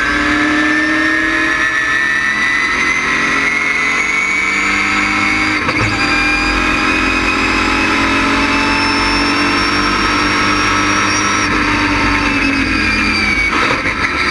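GM LS6 V8 of a GTA stock car with an ASA camshaft, running hard on track with its pitch climbing steadily, a brief break about six seconds in, then climbing again. Near the end the pitch falls as the engine comes off the throttle.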